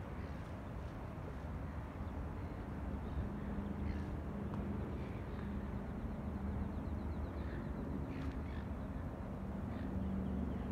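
Birds calling a few times, short cawing calls, over a steady low machine hum whose tone grows stronger near the end.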